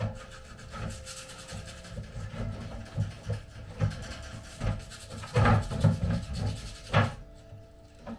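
Wooden display frame being shifted and pushed into place against a brick wall: irregular wood scraping and knocking, loudest in a burst about five seconds in and a sharp knock near seven seconds.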